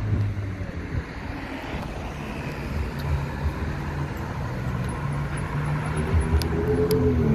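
Street traffic, with ordinary cars driving past at low speed. Over the last second or two the engine note of an approaching white Ferrari convertible rises in pitch and grows louder.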